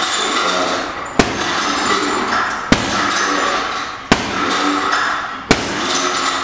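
Boxing gloves landing punches on a heavy bag: four sharp smacks, one about every second and a half, over a steady background hiss.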